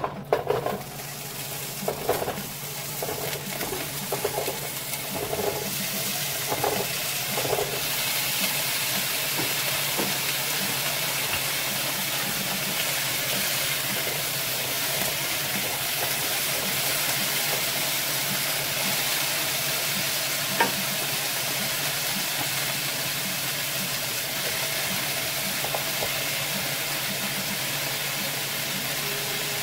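Cubed potatoes and carrots clattering into hot olive oil in a nonstick frying pan and being stirred with a wooden spatula, then settling into a steady sizzle as they pre-fry. The knocking stops about eight seconds in and the even frying sizzle carries on.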